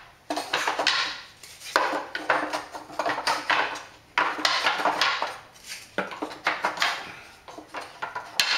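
Thin plywood divider strips clattering and scraping against each other and the wooden drawer as slotted, egg-crate-style separators are handled and slid into place, in a run of about six rattling bursts.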